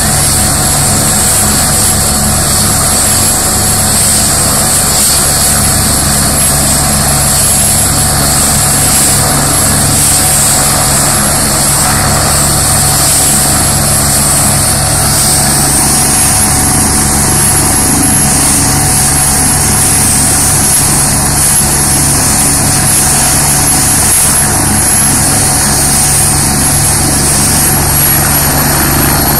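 Helicopter running on the ground with its rotor turning: a steady high turbine whine over the low beat of the rotor. Right at the end the whine starts to rise.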